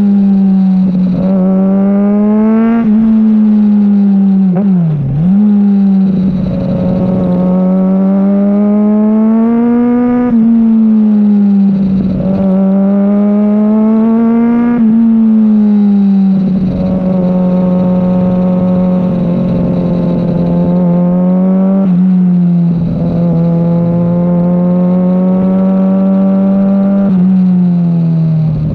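Kawasaki Ninja ZX-6R's inline-four engine under way, its pitch climbing steadily and then dropping sharply about five times as it pulls through the revs and the gears change.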